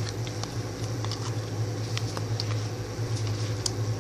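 Glue-based slime being worked by hand as baking soda thickens it: scattered small wet squishes and clicks, with a steady low hum underneath.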